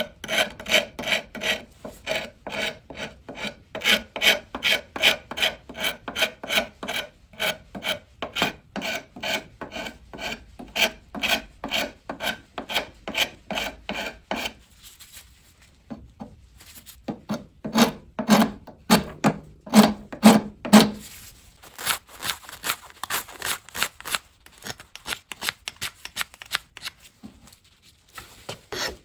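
Hand tool worked back and forth over wood in quick, even strokes, about three a second, like filing, rasping or sanding. The strokes break off briefly about halfway, come back stronger for a few seconds, then go on more lightly.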